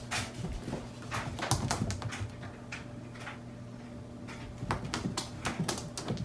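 A pet animal's noises, mixed with many short sharp clicks and knocks.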